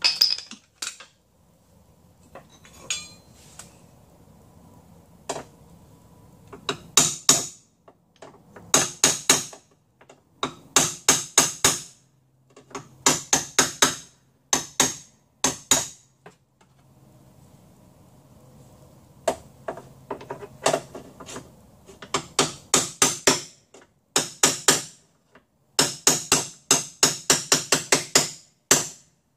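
Hammer striking a hand chisel held against the sheet metal of a car's center pillar: quick bursts of sharp metallic blows, several a second, with short pauses between the bursts.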